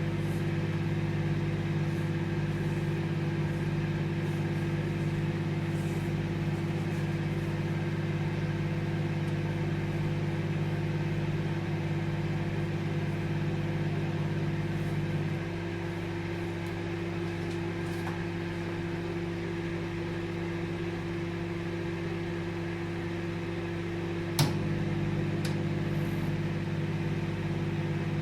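Microwave oven running with a steady hum and whir. About halfway through the hum thins and drops slightly, then a sharp click brings the fuller hum back.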